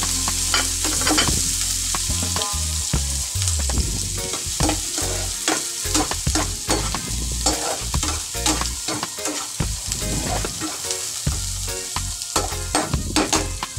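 Diced garlic, ginger and onion sizzling as they sauté in a frying pan, stirred with a slotted spatula that scrapes and clicks against the pan many times over.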